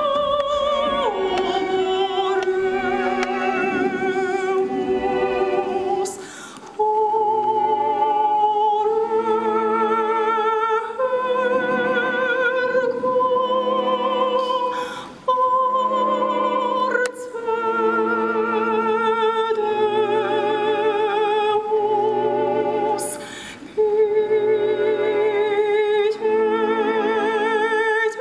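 Opera-style music: a high solo voice sings slow, held notes with wide vibrato over soft low accompaniment, dropping out briefly between phrases.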